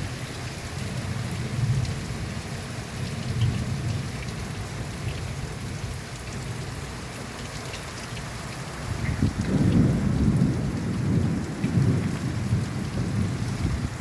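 Torrential rain pouring down in a violent thunderstorm, with strong wind gusts. About nine seconds in, deep surges of low noise come in louder for several seconds.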